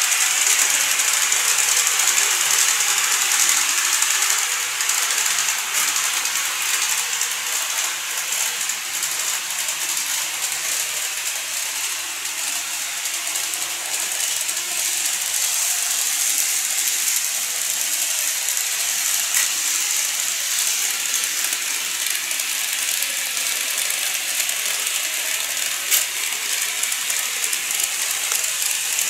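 N-gauge model train running on the layout's track: a steady mechanical whir and rattle from the motor, gears and wheels on the rails. A single sharp click near the end.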